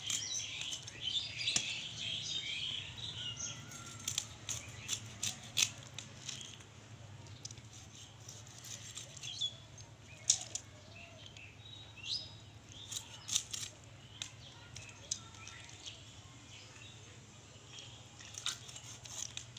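Fish being cut up on an upright curved blade: irregular sharp clicks, crunches and scrapes as the blade goes through scales, skin and bone. Birds chirp in the background, most in the first few seconds.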